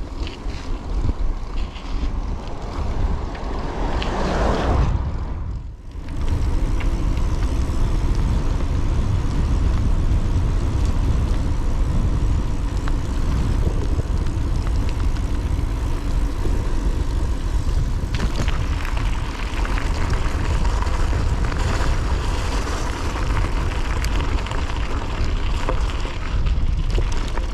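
Wind rumbling on the microphone with tyre and road noise from a moving, loaded touring bicycle. The sound drops briefly about five seconds in.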